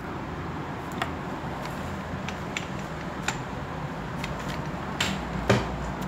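Scattered light clicks and knocks over a steady background hiss, the loudest knock about five and a half seconds in.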